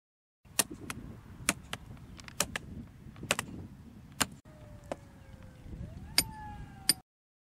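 Hand hammer striking by the brickwork: about a dozen sharp, irregular knocks, some in quick pairs, over a low rustling background.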